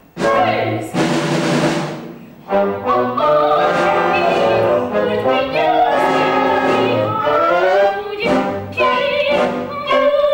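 Theatre pit orchestra with brass playing loud stage-musical music while a chorus sings. A short crash sounds about a second in.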